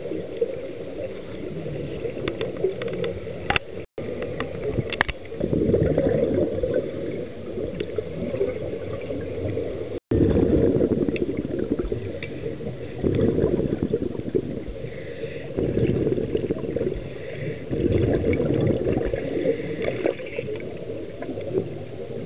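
Scuba regulator breathing recorded underwater: rushing, bubbling bursts of exhaled air every two to three seconds, with a few sharp clicks in the first few seconds. The sound cuts out for an instant twice.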